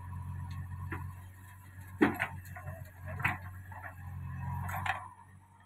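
Steady diesel engine hum of a JCB backhoe loader at work, with sharp knocks as soil and stones drop from its bucket into a tractor trolley: the loudest about two seconds in, others a little after three seconds and near five seconds.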